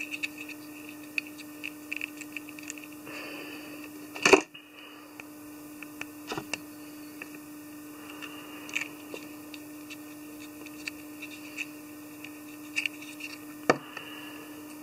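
Small handling noises of fingers working the thread head of a tube fly in a fly-tying vise: light scattered clicks and rustles over a steady low hum, with one sharp knock about four seconds in and another near the end.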